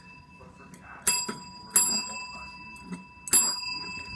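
Chrome desk bell (service bell) struck three times by a West Highland White Terrier puppy, each ding ringing out and fading. The last ding is the loudest.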